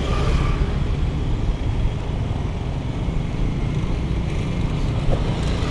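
Steady traffic noise along a busy road, mostly a low rumble.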